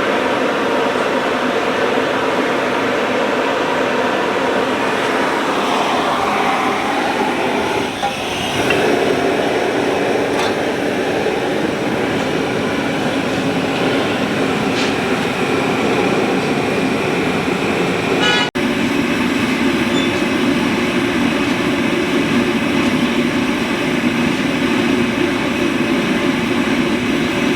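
Loud, steady machine running, a noisy drone with a hum of several steady tones. It breaks off for an instant about two-thirds through and then runs on with a stronger low hum.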